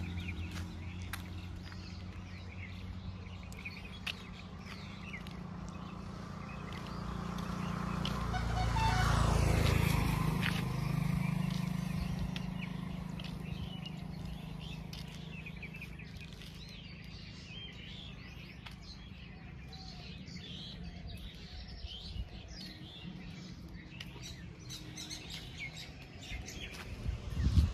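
Small birds chirping throughout, over a low steady hum. A motor vehicle passes on the road, its sound swelling to a peak about nine seconds in and fading away.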